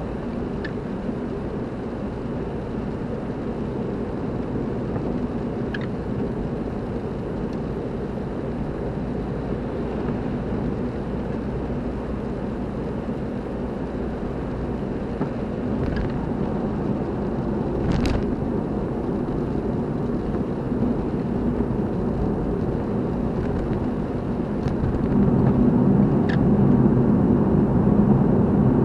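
Steady engine and road noise of a car on the move, getting louder about three-quarters of the way through, with a few faint scattered clicks.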